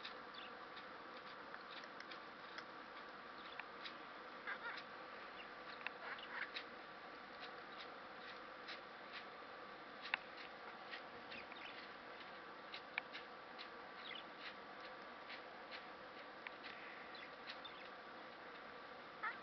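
Male budgerigar babbling softly, a quiet chattering warble broken by many small clicks and short chirps, as he makes courtship and mating moves.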